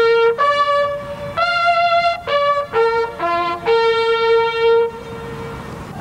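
Four bugles sounding a call in unison: a run of short and held notes that ends on a long held note about five seconds in.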